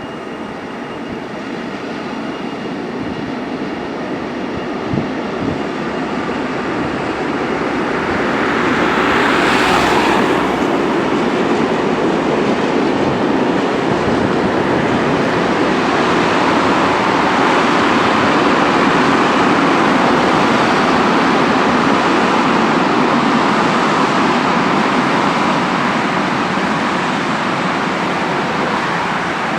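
A train running past on the rails: the rolling noise builds over the first several seconds, rises to a brief high-pitched peak about ten seconds in, then carries on loud and steady, easing only slightly near the end.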